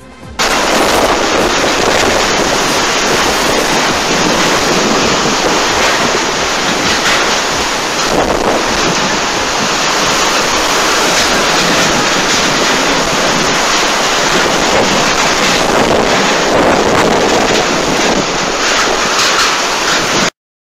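Typhoon wind and driving rain, with wind battering the microphone. A loud, steady rush of noise with occasional swells, starting abruptly about half a second in and cutting off just before the end.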